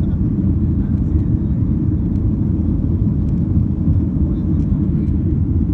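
Steady low rumble of a jet airliner's engines and rushing air heard from inside the passenger cabin during the climb after takeoff.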